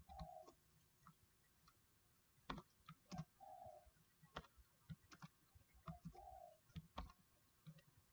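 Faint, scattered computer keyboard keystrokes, single clicks spaced irregularly, a few of them close together, as characters are typed.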